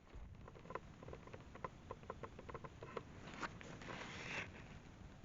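Irregular light clicks and rustling, several a second, with a louder brushing swish about four seconds in.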